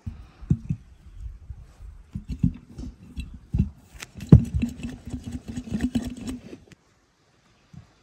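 Whole tomatoes being packed by hand into large glass jars: irregular soft knocks and thuds as they are dropped in and pushed against the glass. A loud thump comes about four seconds in, followed by about two seconds of quick rubbing clicks as a hand presses the tomatoes down into a jar.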